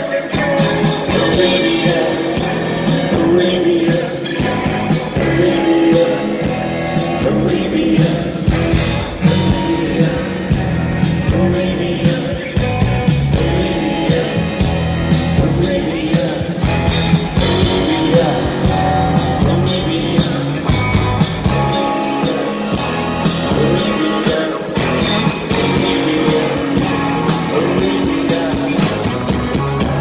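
Live rock band playing with drums, electric guitars and bass over a steady beat, loud and continuous.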